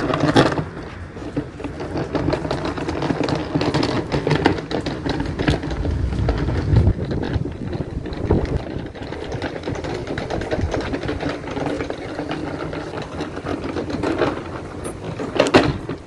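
Henry vacuum cleaner dragged by its hose on its small wheels over block paving, a continuous clattering rattle, with a louder knock near the start and another near the end.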